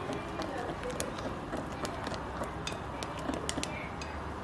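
Spatula stirring a wet flour-and-yeast dough mixture in a glass bowl: a soft wet churning with irregular clicks and knocks of the spatula against the glass.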